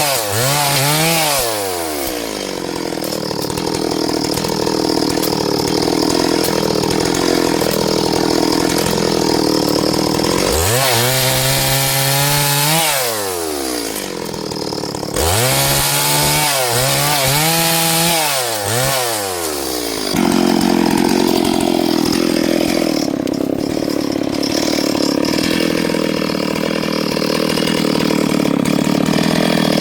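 Small chainsaw cutting into wood. The engine pitch climbs three times as it is revved up, then drops and wavers as the chain bites under load. About two-thirds of the way in it settles into a steady, lower cutting note.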